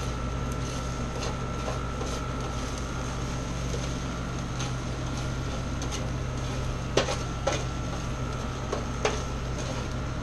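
A steady kitchen fan hum with a faint high whine, and three sharp knocks of cookware being handled: two close together about seven seconds in and one more about two seconds later.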